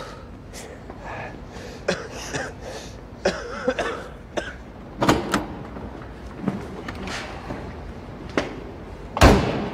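A man coughing and groaning in pain, among scattered footsteps and knocks, with a loud thud near the end.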